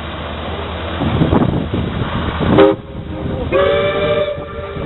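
A ship's whistle sounds a short blast and then a longer blast of about a second, several tones at once, over steady running noise from the river traffic.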